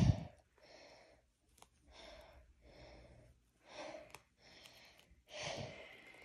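A thump right at the start, then slow, heavy breathing close to the microphone: about six drawn-out breaths, roughly one a second.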